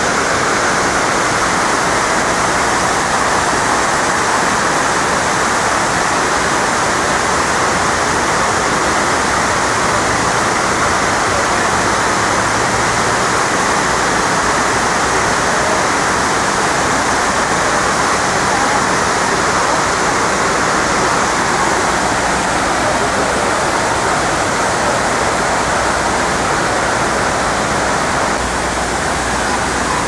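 Steady rushing of water falling down the walls of the 9/11 Memorial's reflecting pool, a large man-made waterfall.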